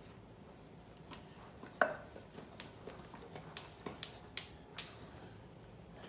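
A spoon clicking and scraping against a ceramic mixing bowl while stirring thick muffin batter, in a few irregular knocks. The loudest knock comes about two seconds in, with a brief ring.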